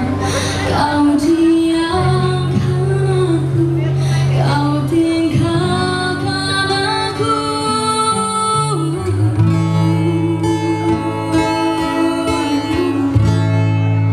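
Live acoustic performance: a woman singing with acoustic guitar accompaniment, amplified through a PA sound system.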